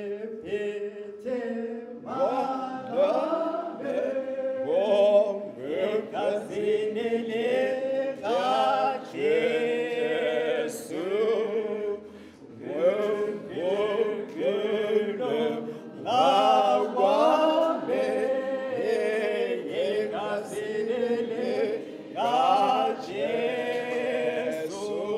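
Unaccompanied hymn singing, a slow melody sung in phrases with short breaks between them.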